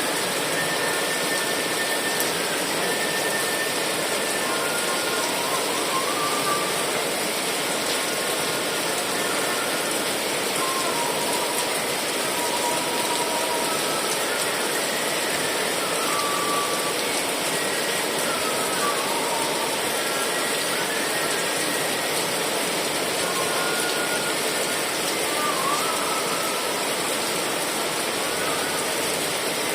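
Steady heavy rain, an even hiss with no change in level, with faint short whistles or chirps scattered through it.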